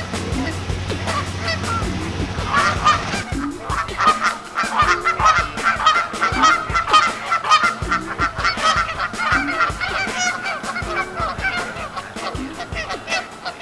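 A flock of geese honking, with many short calls overlapping. The calls grow busier about three seconds in and thin out a little near the end.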